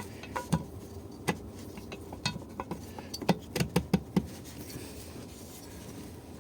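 Irregular sharp metal clicks and light taps as a piston with ring compressors clamped around its rings is worked into the cylinder of a Honda GX200-clone engine. The clicks come thickly for about four seconds, then thin out.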